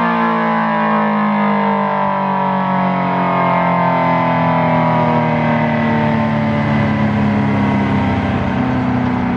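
A.C.A. P-10 outdoor warning siren winding down after its steady Full Alert tone: its chord of tones slowly falls in pitch over a steady low hum.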